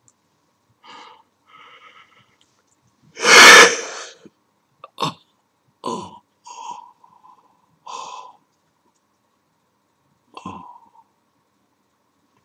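A man's strained breath sounds and vocal outbursts: one loud, forceful wheezing gasp about three seconds in, then several shorter gasps and breaths over the following seconds.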